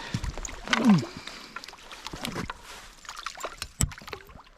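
Irregular splashing and knocking of water as a small hooked brown trout is played in and netted from a stream. About a second in there is a short falling tone, the loudest moment.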